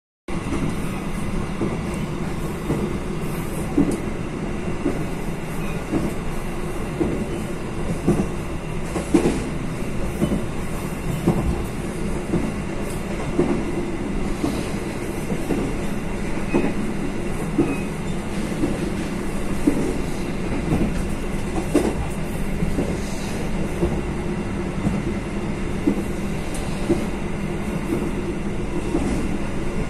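Moving train heard from on board: the wheels rumble steadily on the rails, with irregular knocks and clacks.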